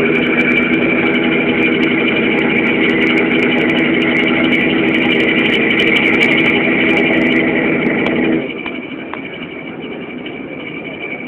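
Passenger ship's engine running with a steady drone and a high whine; the lower drone drops away suddenly about eight seconds in, leaving a quieter hum and the whine.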